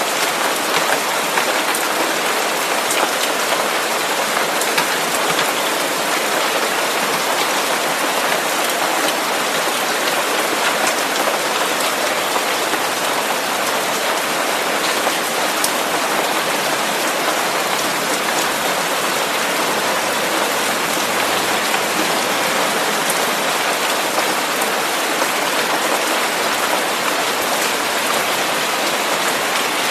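Steady, unbroken white noise with the sound of rain: an even hiss with faint scattered patter, holding one level throughout.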